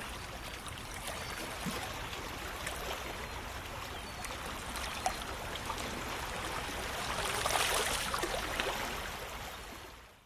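Sea water rushing and splashing, with small splashes through it. It swells about seven seconds in, then fades out at the end.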